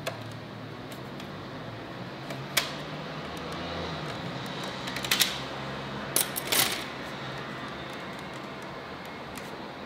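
Hard plastic clicks and clacks from an NP-type camera battery being handled and fitted to the ring light's battery mount: one sharp click about two and a half seconds in, then a few clicks together around five seconds and again about a second later, over a low steady hum.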